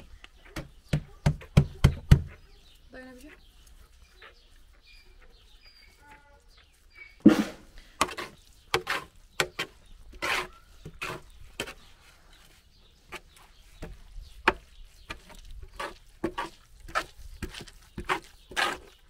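A metal ladle knocking and scraping against a large metal cooking pot as a big batch of macaroni is stirred and scooped, in a series of sharp clanks. A burst of knocks comes in the first two seconds, then a quieter stretch, then a steady run of knocks and scrapes from about seven seconds in.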